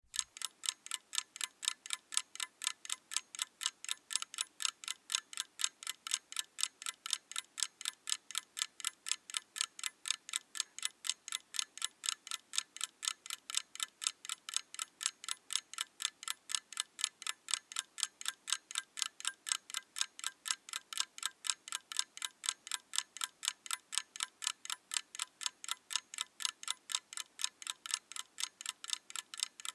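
Mechanical clock ticking: fast, even, crisp ticks, several a second, with no change in pace.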